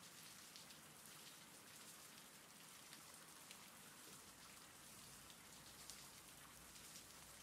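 Faint steady rain: an even hiss with light drops pattering.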